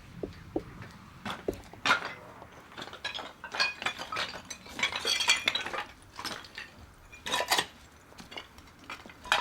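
Fire rubble with broken glass and shards clinking and crunching as it is moved about: an irregular string of clinks and knocks, loudest about two seconds in, around five seconds and again just past seven seconds.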